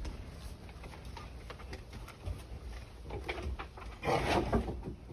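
A puppy mouthing and chewing a rope toy: faint scattered rustles and clicks, with a louder rustling about four seconds in.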